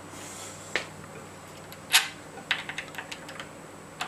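Sharp plastic clicks and small ticks of an HDMI cable plug being handled and pushed into its socket: a single click, a louder one, then a quick run of light ticks, over a faint steady hum.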